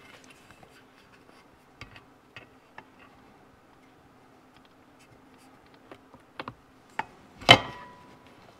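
Aluminium crankcase halves of a 1972 Yamaha 250 MX (DT2) engine being fitted together by hand: scattered light clicks and taps as the upper case is lowered onto the dowel pins and settled. About seven and a half seconds in comes a sharper metal clunk with a short ring.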